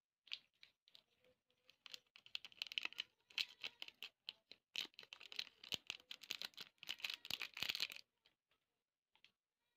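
Dense, irregular crackling and clicking that stops about eight seconds in.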